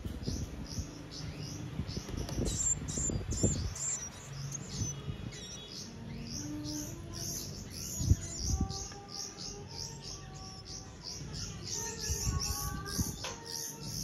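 Nestling songbirds begging: thin, high chirps repeating steadily about three times a second. A few soft thumps come early on, and a slow series of lower held tones sounds in the second half.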